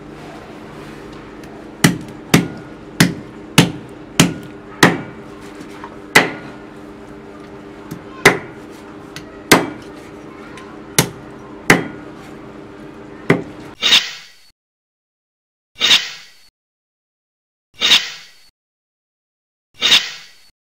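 Cleaver chopping on a wooden chopping block: a run of irregular sharp chops over a steady low hum, then four single chops about two seconds apart with silence between them.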